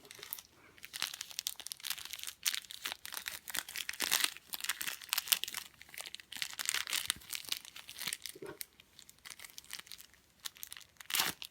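Packaging crinkling and tearing as it is opened by hand: a dense run of irregular crackles and rustles.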